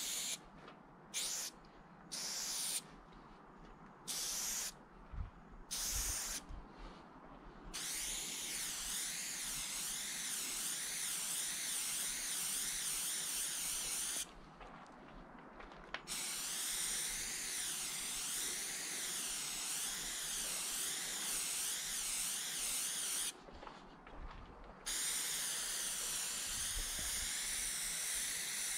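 An aerosol can of chrome spray paint hissing as it is sprayed: first a string of short bursts, then long, continuous sprays with two brief pauses.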